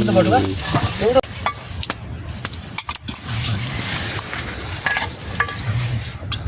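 Food sizzling as it fries in a pan, with a utensil stirring and scraping against the pan in irregular clicks. A short pitched, voice-like sound fades out in the first half second.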